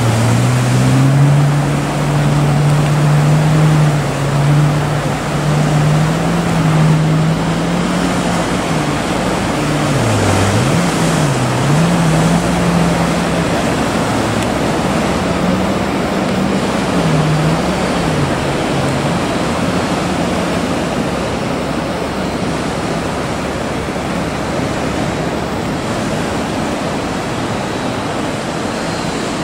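Surf and breaking waves, a steady rushing wash. Over them a boat engine drones, its pitch dipping and rising a few times as it rides the swell, and it fades out after about twenty seconds.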